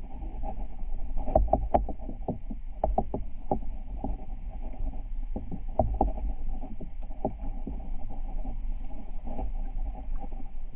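Underwater river sound: a steady low rumble with faint hiss, broken by irregular short clicks and knocks that come in small runs.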